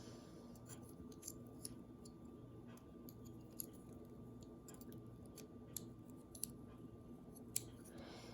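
Small plastic clicks and taps of toy figure parts being handled and pressed together, scattered irregularly over a faint steady hum.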